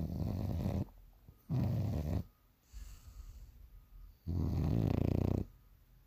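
Sleeping English bulldog snoring: three loud snores, the last the longest at about a second, with a softer breath between the second and third.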